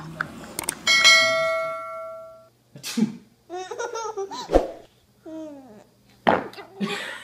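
A bell chime rings once about a second in and dies away over about a second and a half, a notification-style sound effect. Then a baby laughs and squeals in short bouts, with a few sharp knocks between them.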